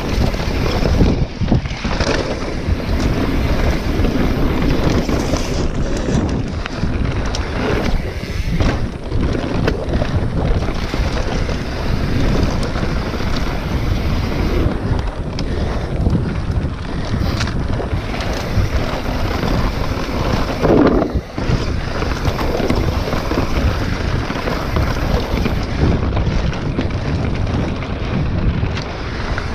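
Wind buffeting the microphone of a handlebar-mounted action camera on a mountain bike descending a dirt singletrack at speed, with the tyres rumbling over the trail and frequent knocks as the bike hits bumps.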